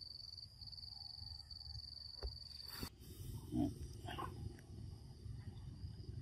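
A monkey's two short calls, a low grunt and then a brief higher squeak, about three and a half seconds in. Before them a steady high insect drone cuts off suddenly.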